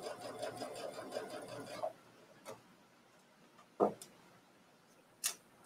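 Brother Luminaire sewing machine running a long basting stitch through knit fabric, its needle going in a steady, even rhythm, then stopping about two seconds in. A short knock and a click follow.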